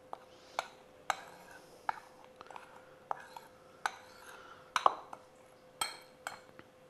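Metal spoon stirring dry flour in a white ceramic bowl, clinking against the bowl's side in sharp, irregular taps about once or twice a second, with soft scraping between them.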